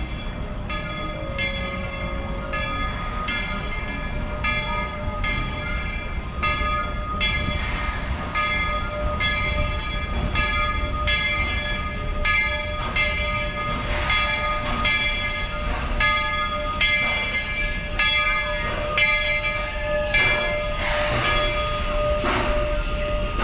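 Walt Disney World Railroad steam locomotive pulling into the station over a low rumble, its bell ringing in a steady rhythm of about three strokes every two seconds. Near the end, hissing bursts of steam join in.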